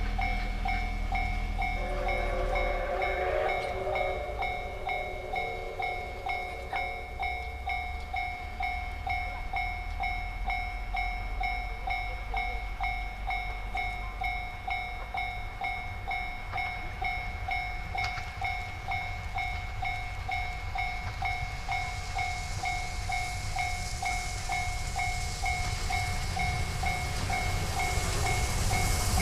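Level-crossing alarm ringing at an even pace of about two strokes a second, over the low rumble of an approaching train that grows louder near the end.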